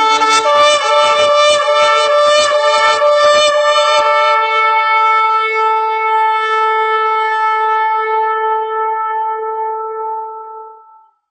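Shofar (ram's-horn trumpet) blown in one long blast: rough and wavering for the first few seconds, then held as a steady note that fades out near the end.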